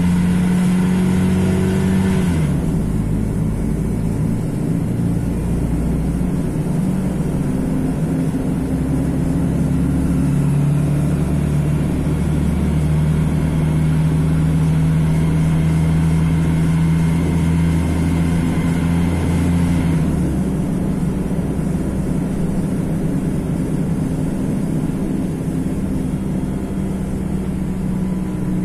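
Mercedes-Benz OM 457 LA straight-six diesel of an articulated city bus running steadily. Its note shifts about two and a half seconds in, holds steady for several seconds in the middle, and drops again near twenty seconds.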